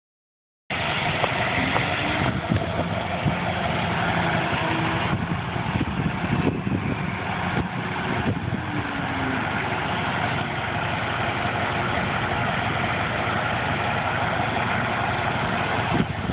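A motor-vehicle or machinery engine running steadily at idle, starting abruptly just under a second in.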